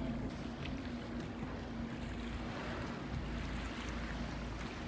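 Steady low drone of a boat's engine, mixed with wind and the wash of choppy water.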